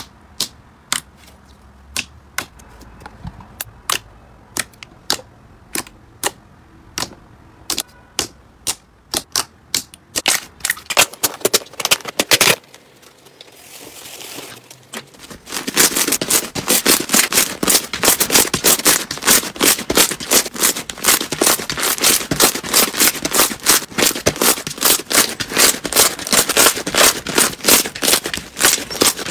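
Slime being poked, pressed and squeezed by hand, letting off sharp popping clicks as trapped air pockets burst. The pops come about twice a second at first, ease into a softer sticky swishing for a few seconds past the middle, then turn into a dense, loud run of crackling clicks.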